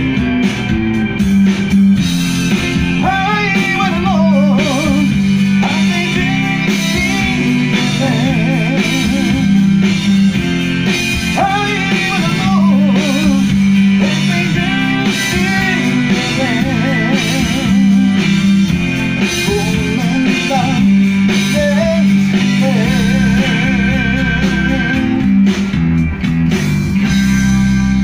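Rock song with guitar and a singing voice, the melody wavering with vibrato over a steady bass line.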